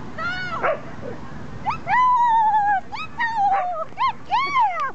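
A dog whining and yelping in about five high-pitched calls. The longest is a drawn-out whine about two seconds in that falls slowly in pitch; the others are short and rise then fall.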